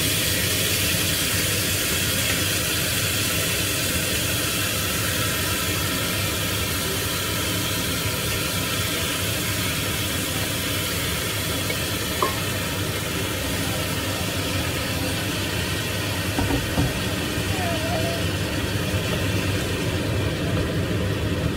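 Steady hiss with a low hum from a lidded stainless steel pot of adobo cooking on an induction hob, with a faint click about twelve seconds in.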